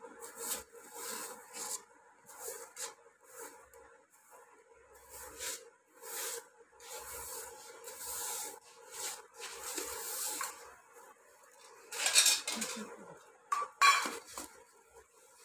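Grass broom swishing over a concrete floor in short, uneven strokes about once a second, brushing loose green pods along, with a couple of louder clattering knocks near the end.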